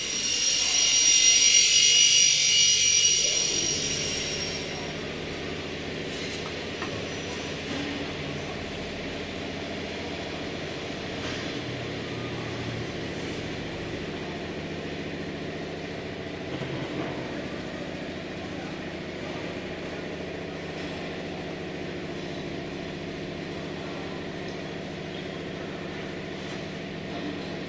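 A PVC window welding machine's pneumatics hiss loudly with compressed air for about four seconds, then the machine settles into a steady hum with several held low tones.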